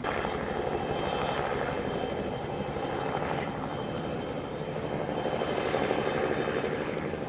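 Steady engine drone of a crop-spraying aircraft flying over, swelling a little about six seconds in.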